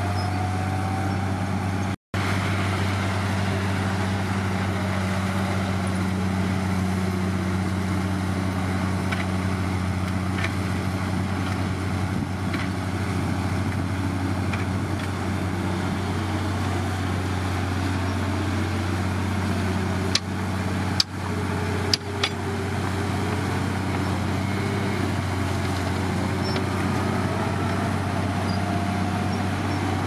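Komatsu D53P bulldozer's diesel engine running steadily at a constant low note, cutting out for an instant about two seconds in. A few sharp clanks come about twenty seconds in.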